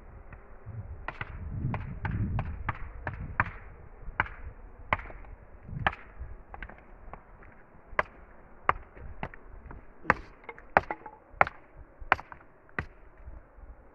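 Stone being struck during dry stone wall building: a series of sharp knocks, at first irregular and later about one every second, with the loudest strikes near the end.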